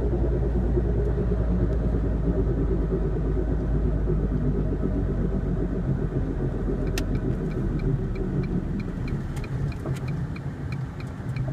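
Low rumbling road and wheel noise inside a moving 2001 Ford Focus, the grinding the owner traces to the front driver-side wheel even after a new wheel bearing, rotors and sway bar links. The rumble eases as the car slows over the last few seconds, and a light regular ticking, about three a second, starts about seven seconds in.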